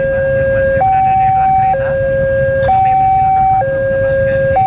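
Railway level-crossing warning alarm sounding a steady electronic two-tone signal, switching between a lower and a higher tone about once a second, the sign that the barrier is down for an approaching train. A low rumble of idling motorcycle engines runs underneath.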